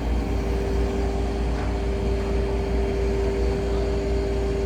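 Steady engine-like drone: a constant pitched hum over a low rumble, unchanging throughout.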